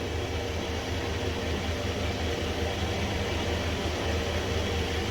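A vehicle engine idling steadily, a low even hum with a light regular pulse.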